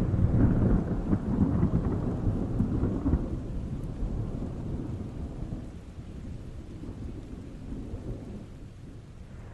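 Rolling thunder rumbling deep and low, loudest over the first three seconds and then fading away, with rain underneath.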